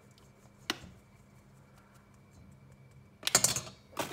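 A sharp click about a second in as the mesh flour sieve knocks against the stainless steel mixing bowl, over faint light ticks. Near the end a loud crinkling rustle of the paper flour bag being handled.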